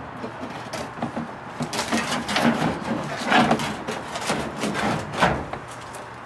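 Plastic wheel-well fender liner scraping, rubbing and flexing against the wheel arch and tire as it is worked out of a pickup's wheel well: an irregular run of scrapes and knocks.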